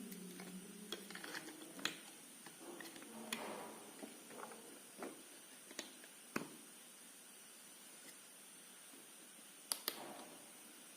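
Scattered small clicks and taps of a Bluetooth speaker's plastic parts being handled during reassembly. A quick double click comes near the end.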